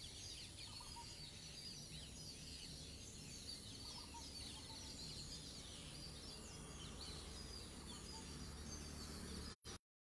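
Outdoor background of many small birds chirping over a low steady rumble, cutting out abruptly near the end.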